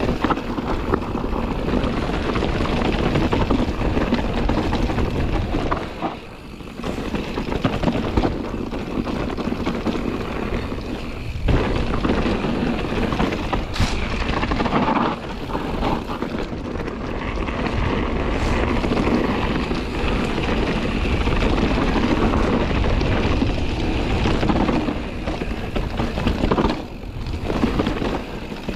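Scott Ransom 900 mountain bike descending dirt singletrack: tyre rumble over the trail, rattle of the bike and wind buffeting the microphone, with a sharp knock about 14 seconds in and brief lulls twice.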